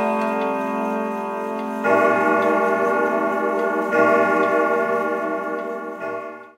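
Background music of sustained held chords that change about two seconds in and again about four seconds in, fading out at the end.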